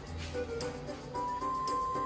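Background music: a light melody with a bass line and soft percussion, one melody note held from a little past the middle.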